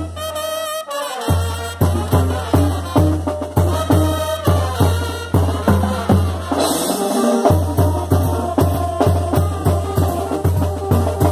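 Small Mexican brass band (banda) playing, with trumpets, saxophones and a trombone over a steady bass-drum beat. The drums drop out for about the first second, and again briefly just past the middle, where a cymbal crash sounds.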